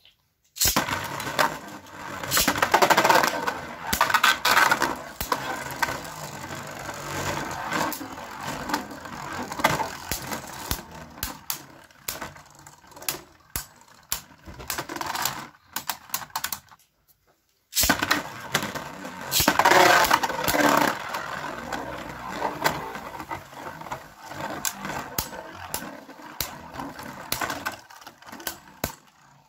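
Two Beyblade Burst tops, Fafnir and Longinus, spinning in a plastic stadium. They start with a loud run of clashing and clattering, then scrape and rattle with scattered ticks as they keep spinning. The sound cuts out briefly after about 17 seconds, then comes back with a second burst of loud clashing followed by more rattling.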